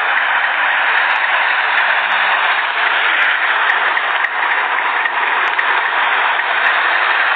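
Steady rain falling on wet pavement: an even, unbroken hiss.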